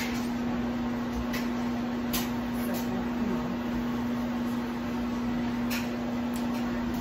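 Steady electrical hum at one constant pitch over a hiss, with a few faint clicks.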